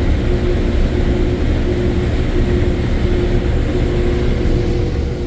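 A vehicle engine running steadily: a low rumble with a held mid-pitched hum that drops in and out.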